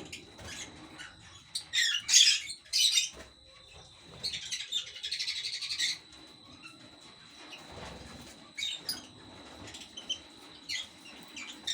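Young lovebirds chirping and squawking in short, irregular high-pitched calls, with a longer, denser call lasting about two seconds about four seconds in.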